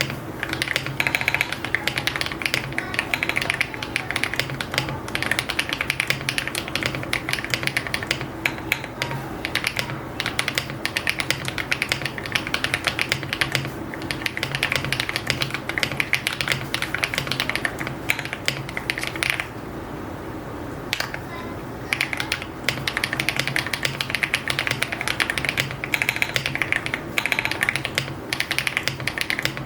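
Fast, continuous typing on an EPOMAKER x AULA F75 mechanical keyboard with copper metal Cherry-profile keycaps and pre-lubed HMX Latte linear switches: a dense run of keystrokes that stops briefly about two-thirds of the way through, then carries on.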